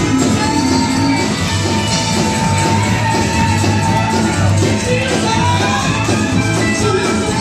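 Live church praise band playing loudly during a praise break: drum kit and electric guitars with voices singing and shouting over them, recorded in a large room.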